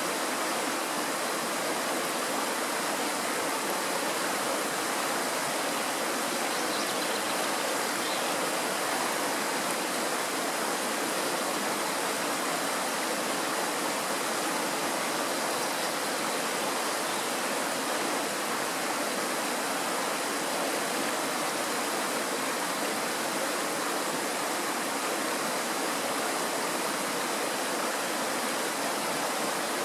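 Shallow mountain stream rushing steadily over stones, with white water breaking over a rock.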